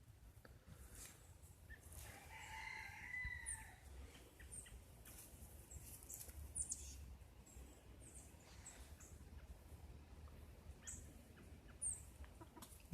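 A faint rooster crow about two seconds in, lasting over a second, with a few short high chirps scattered through an otherwise quiet stretch.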